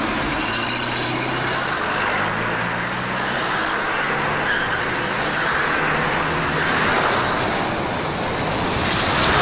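Vehicle engines running as off-road vehicles drive along rough tracks. Near the end a hissing surge of splashing water comes in as a Land Rover Discovery fords a river.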